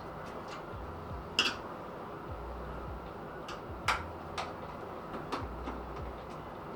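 Sharp clicks and small knocks from a PC case's screws and side panels being handled, with two louder clicks about a second and a half and four seconds in and a few lighter ones after, over a steady low hum.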